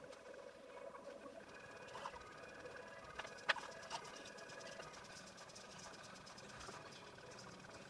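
Faint room noise with a few sharp clicks and knocks from things being handled, the loudest about three and a half seconds in.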